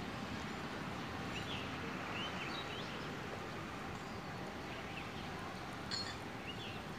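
Steady background hiss of open air, with a small bird giving short, high chirps now and then.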